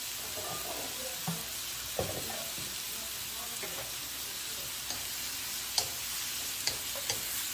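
Food frying in a pan with a steady sizzle, broken by a few light clicks.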